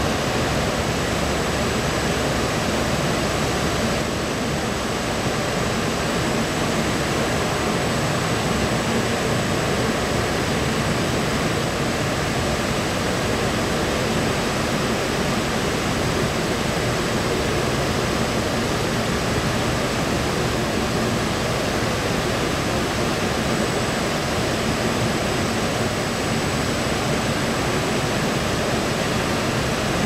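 PR 5000 VG marquee washing machine running: a steady, loud, even rush of water and machinery, with a thin high whine over it.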